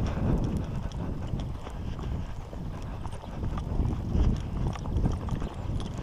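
Footsteps walking briskly along a snowy, slippery path, an uneven run of soft steps.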